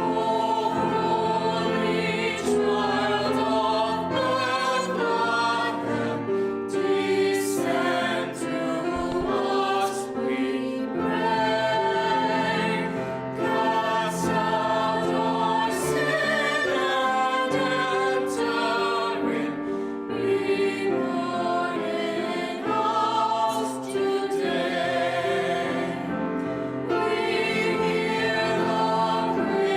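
High school choir singing a holiday piece, many voices holding and moving between sustained chords.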